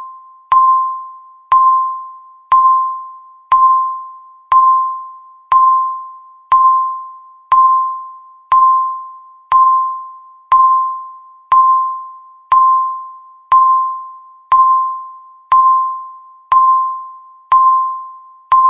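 Countdown timer's tick sound: a short, high ding that starts sharply and fades, repeating steadily once every second as the timer counts down its final seconds.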